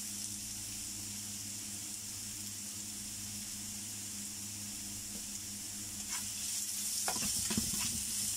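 Garlic, ginger and sliced soaked dried mushrooms sizzling steadily in hot oil in a nonstick frying pan. From about six seconds in, a spatula scrapes and taps against the pan as they are stirred.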